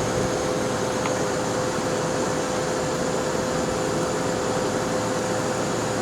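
Vacuum cleaner motor running steadily, a constant hum with a steady whine over it.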